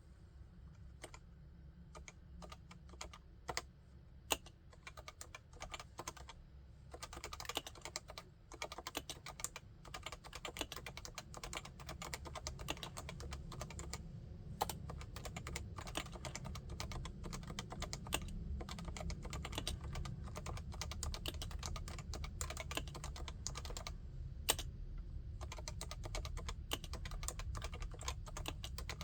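Typing on a Realforce 87UW tenkeyless keyboard with Topre electrostatic capacitive switches. Scattered keystrokes at first, then fast continuous typing from about seven seconds in, with a few louder single key hits.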